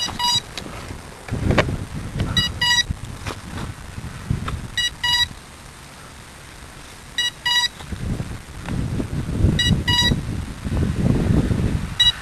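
Electronic beeper sounding short double beeps, one pair about every two and a half seconds, like an alarm. Gusting wind buffets the microphone underneath.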